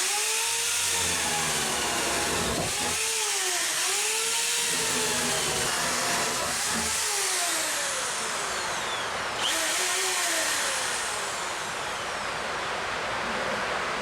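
A small motor running, its pitch rising and falling over and over, about every three seconds.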